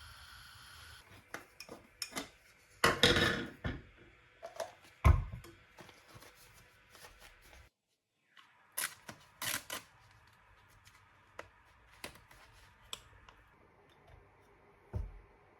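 Coffee-making utensils and equipment being handled: scattered clicks, clinks and knocks, a short rustling burst about three seconds in, and a loud thump about five seconds in and again near the end.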